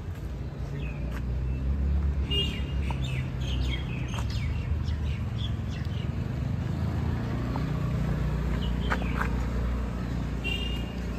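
Small birds chirping in short, scattered calls, a busy run of them in the first few seconds and more near the end, over a steady low rumble.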